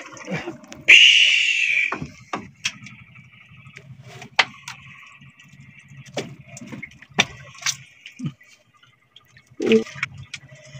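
A squid hauled up out of the sea on a hand line and jig: a loud gush of water about a second in, then scattered clicks and knocks as the squid is unhooked from the jig by hand and dropped into a plastic basket.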